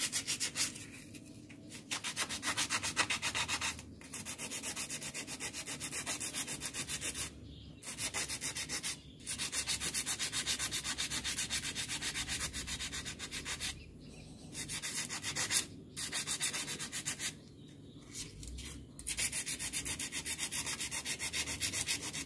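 Fine sandpaper rubbed by hand against a small metal part of a Honda CB150R electric starter motor, in quick back-and-forth scraping strokes. The strokes come in spells of a few seconds with short pauses between them. The sanding clears rust and crust from the part, the dirt blamed for the starter turning roughly and sounding harsh.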